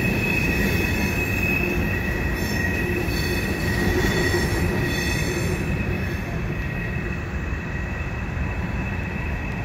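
Freight train wheels squealing on a curve as covered hopper cars roll over a bridge: a steady high-pitched squeal with a second, lower squeal tone over the low rumble of the cars. The squeal thins and the sound drops a little about six seconds in, as the last cars pass.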